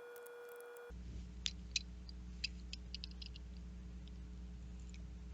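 Faint, scattered small clicks and taps of small shifter parts and tools being handled on a workbench. A steady faint hum changes suddenly about a second in.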